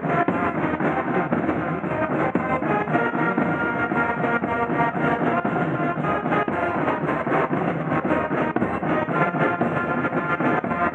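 Marching band playing: brass (trumpets, trombones, sousaphone) over snare and bass drums keeping a steady beat.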